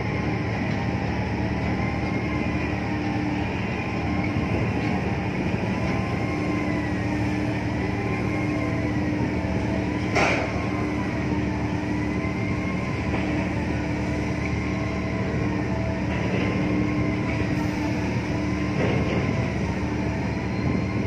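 A steady low machine drone with a constant hum, and a higher whine that wavers up and down about every two seconds. A single sharp knock comes about ten seconds in.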